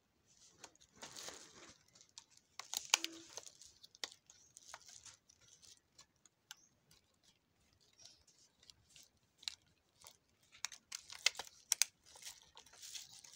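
Clear plastic packaging crinkling and tearing as it is opened by hand, in irregular bursts of crackles, the sharpest about three seconds in and again near the end.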